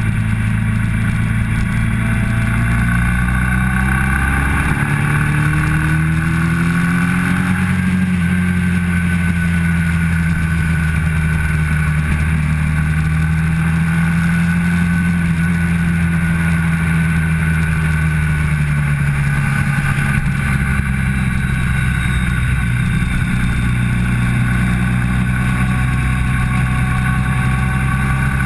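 Motorcycle engine heard from an onboard camera on the bike at track speed. The engine pitch climbs over the first several seconds, holds high through the middle, and drops back about two-thirds of the way in.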